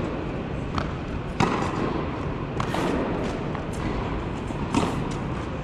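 Tennis ball being struck by rackets and bouncing on a hard indoor court during a rally: several sharp knocks, the loudest about a second and a half in, each followed by echo from the large hall, over steady background noise.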